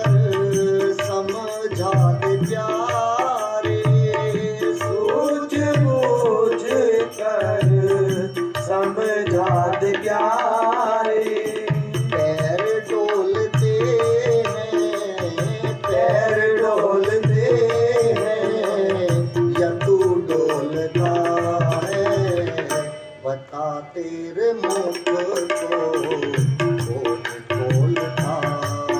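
Instrumental interlude of a Hindi devotional bhajan: a tabla keeps a steady rhythm under a gliding melody line. The music thins briefly about three-quarters of the way through.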